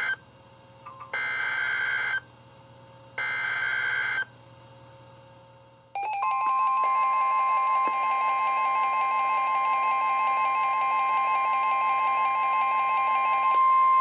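NOAA Weather Radio Emergency Alert System activation. Three harsh digital data bursts of about a second each (the SAME header coded for a severe thunderstorm warning) are followed, about six seconds in, by the steady 1050 Hz warning alarm tone. Several weather radios' own alert beeps pulse over the tone and stop shortly before the end.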